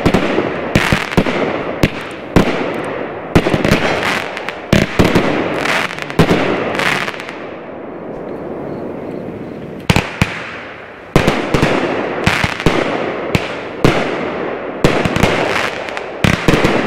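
A 16-shot, 200 g consumer firework cake (Winda Thermal Blast) firing. Its shots are sharp, loud bangs, each trailing off into crackle. There is a lull around the middle, and then the bangs start again.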